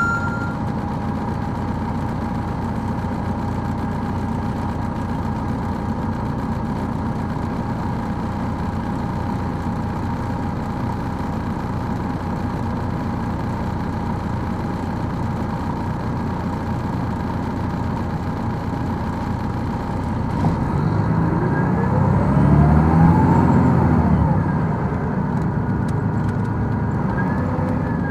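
Detroit Diesel Series 60 engine of an MCI D4000 coach heard from inside the bus, running steadily at low revs with a steady whine. About 20 seconds in it revs up, rising in pitch and getting louder for a few seconds as the bus pulls away, then eases off.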